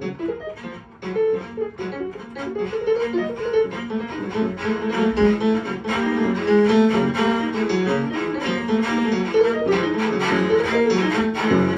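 Live improvised trio music: quick plucked gayageum (Korean zither) notes over drums, the playing growing louder and busier a few seconds in.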